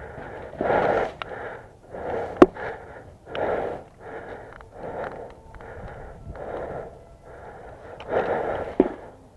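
A person breathing hard and rhythmically close to the microphone, one breath about every three-quarters of a second. Two sharp clicks cut in, one about a quarter of the way in and one near the end.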